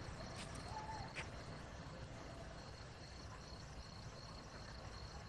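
Faint crickets chirping steadily in an even, pulsing trill over low background noise.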